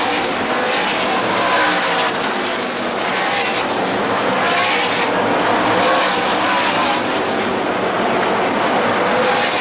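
NASCAR Craftsman Truck Series race trucks' V8 engines running at racing speed on a short oval. The engine pitch rises and falls as the trucks go by.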